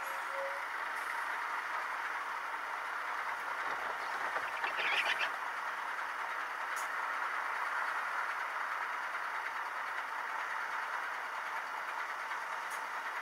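Steady in-cab vehicle noise picked up by a dashcam in slow traffic, with a brief louder rattle about five seconds in.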